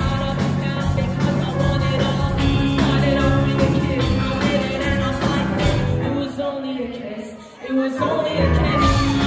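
Live rock band playing: a female lead vocal over electric guitars, bass guitar and drums. About six seconds in the band thins out and the bass and drums drop away for a moment, then the full band comes back in about two seconds later.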